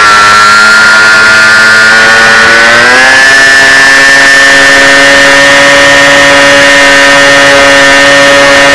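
SunnySky brushless motor and propeller of an FPV fixed-wing RC plane, heard loud and close from the plane's on-board camera. The pitch is steady at first, rises about three seconds in as the throttle is opened, then holds at the higher pitch.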